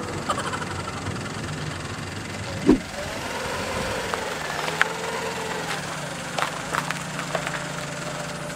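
Car engine running with a knocking noise, which the owner complains of as noisy again. There is a thump nearly three seconds in, and a few light clicks later.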